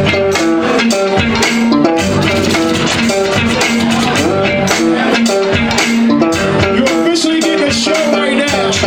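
Music with a melody on guitar over bass and a steady drum beat.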